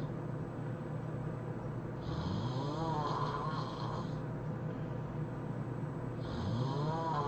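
A man snoring heavily, two long snores in which the pitch rises steeply, about two seconds in and again near the end, each with a hissy rasp over the top.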